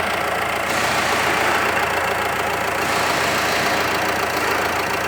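Jeep Compass 2.0 turbodiesel engine idling steadily with its usual diesel clatter, a noise the mechanic judges normal for this diesel, not a fault.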